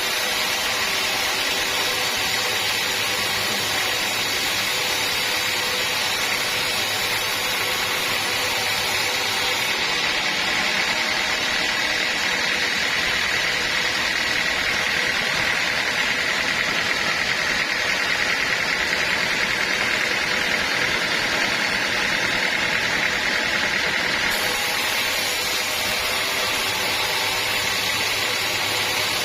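Sawmill machinery running steadily, with a constant high whine over the machine noise; the sound shifts abruptly twice.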